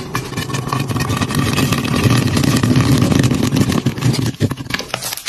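Popcorn kernels popping rapidly in a covered frying pan, a dense stream of pops over a low rumble.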